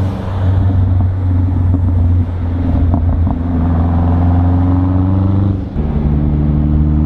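2017 Ford Raptor's twin-turbo 3.5-litre EcoBoost V6 running while driving, heard from inside the cab as a steady low drone. The note changes about two seconds in, and again after a brief dip in level near six seconds.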